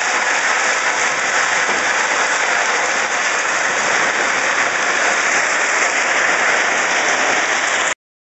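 Crushed-rock railway ballast rattling and scraping against a railcar's steel ballast plow as the car rolls along the track, a steady dense hiss of stone. It cuts off suddenly near the end.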